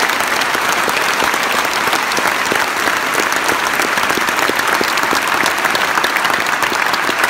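A large theatre audience applauding, many hands clapping together in a steady, unbroken wave.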